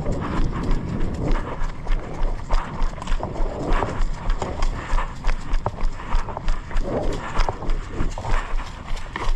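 Running footsteps of the camera-wearing player, jolting the microphone with evenly spaced thuds about three a second, with gear rattling.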